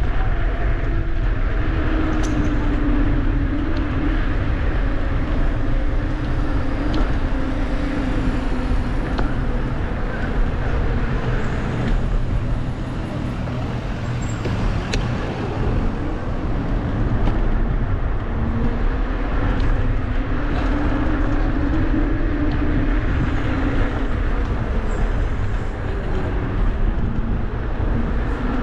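Steady vehicle rumble with a low hum that slowly wavers in pitch and a few faint clicks.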